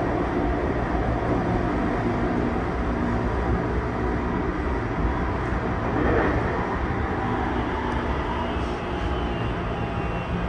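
Tokyu 2020 series train's Mitsubishi full-SiC MOSFET VVVF inverter and traction motors, heard from inside the car: a loud whine of stacked tones that step in pitch, over the rumble of wheels on rail, with a brief louder swell about six seconds in. The train is nearing the next station, so the motors are most likely braking.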